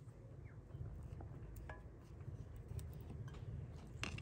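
Walnut halves being picked from a plate and pierced with a needle for stringing: faint, scattered small clicks.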